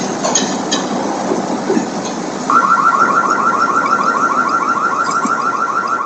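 A steady rushing noise. About two and a half seconds in, a car alarm starts up: a fast, high chirp repeating about ten times a second.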